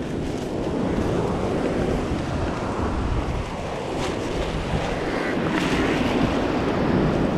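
Surf washing on the beach, swelling and easing, with wind buffeting the microphone.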